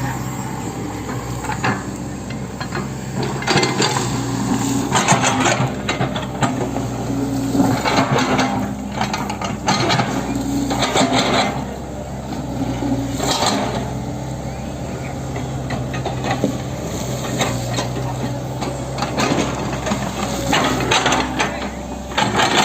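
Hitachi 110 M excavator's diesel engine running steadily, with repeated bursts of metallic clanking and scraping from the bucket and machine while it works.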